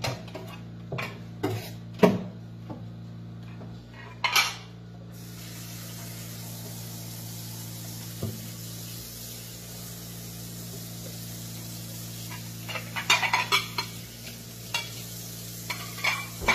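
Dishes and cutlery clinking and clattering at a kitchen sink. About five seconds in the tap is turned on and water runs steadily, with more clattering of dishes under the running water near the end, over a steady low hum.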